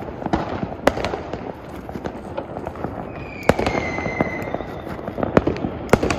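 Firecrackers going off: many sharp bangs and cracks at irregular intervals over a steady crackle, with a faint whistle that falls slightly in pitch about three and a half seconds in.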